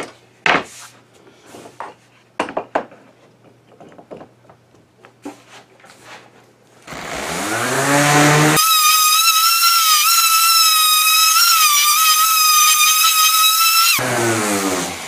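A few light knocks as wooden boards are handled on a workbench, then a random orbit sander switches on about seven seconds in, spins up, and runs as a steady whine that wavers slightly as it sands the face of a maple-and-cherry board. It cuts off about a second before the end and spins down.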